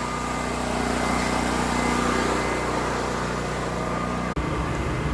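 An engine running steadily at idle with a constant hum. A brief dropout comes about four seconds in, after which the low end turns uneven.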